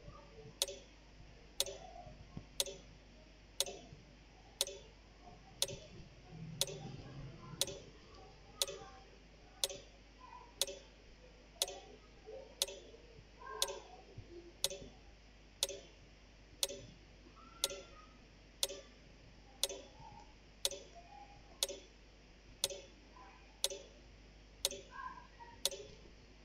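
Clock ticking, one sharp tick each second, keeping time with a running quiz timer.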